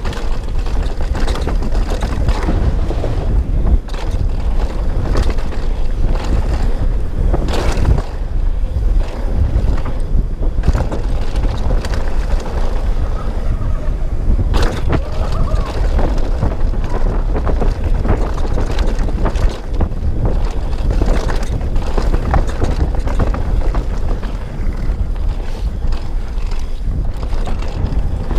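Loud, steady wind rush buffeting the microphone of a camera moving fast downhill, with scattered knocks and scrapes from the ride.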